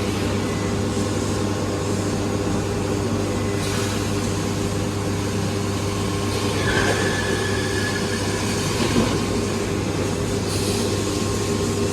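Short-cycle laminating hot press line for wood-based panels running: a steady machine hum with several steady tones, broken by a few brief hissing bursts, and a thin high tone for about a second past the middle.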